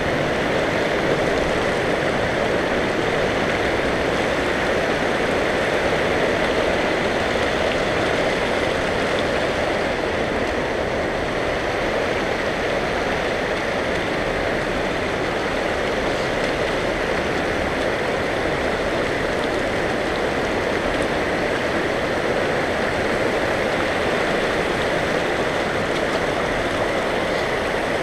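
Shallow creek running over rocks and cobbles: a steady, unbroken rush of water.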